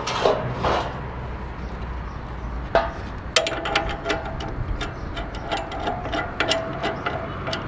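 A metal oil drain pan scraping into place on concrete, then from about three seconds in a socket ratchet clicking in short quick runs as it is worked back and forth to loosen a motorcycle's oil drain plug.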